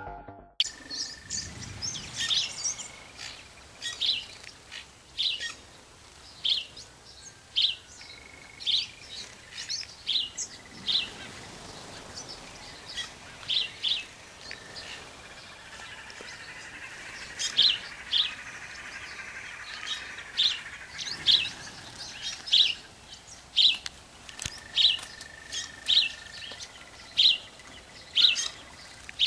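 Small birds chirping: many short, sharp, high chirps in quick, irregular succession.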